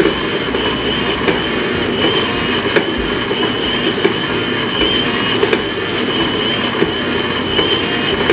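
Motorized interactive cat toy running: a continuous mechanical whirr and rattle with a steady high whine, over which its built-in sound plays short high chirps in groups of three, repeating about every two seconds.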